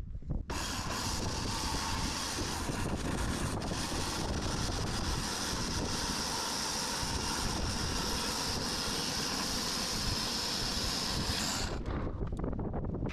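Sawmill blade cutting through an ash log: a steady hissing cut starts about half a second in and stops suddenly near the end, over a continuous low rumble.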